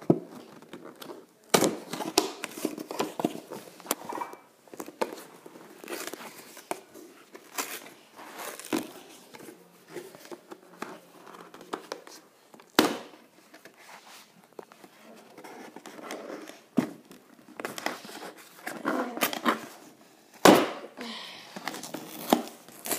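A cardboard toy box being torn open by hand from the side: ripping and crinkling of cardboard and packaging, with several sharp knocks and clicks as it gives way.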